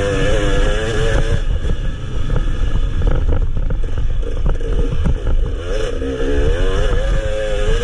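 Enduro motorcycle engine at speed, its pitch wavering up and down as the throttle opens and closes. In the middle the engine note drops back and a run of knocks from the bike comes through, then it revs up again near the end.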